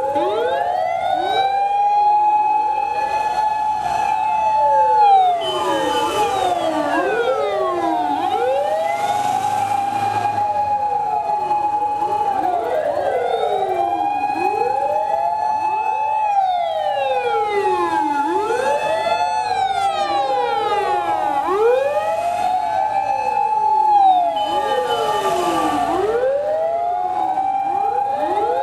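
Sirens of many fire engines wailing together, out of step: each winds up to a held high tone, then slides down before winding up again, so the wails overlap. A few brief louder swells of noisy sound rise over them about 5, 10 and 25 seconds in.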